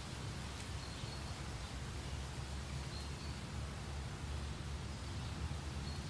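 Meadow ambience: a soft, steady wind hiss with a low rumble, and a few faint short high bird chirps, about a second in, about three seconds in and near the end.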